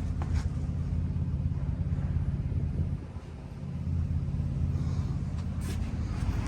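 Engine running steadily with a low hum, easing off briefly about halfway through.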